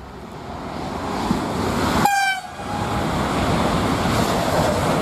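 Trenitalia high-speed train approaching and passing at speed with a steady rushing noise, and a short horn blast about two seconds in.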